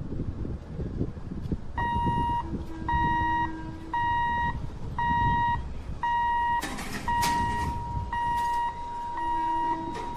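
Electronic warning beeper at a railway level crossing, sounding repeated high-pitched beeps about once a second. The beeps start about two seconds in and run almost together near the end, over a low rumble of traffic.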